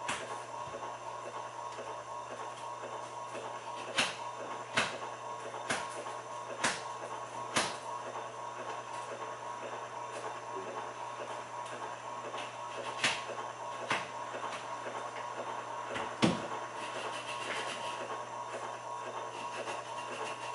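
Servo motor test rig running with a steady electrical hum and whine, with about nine sharp clicks scattered through it, the loudest near the end.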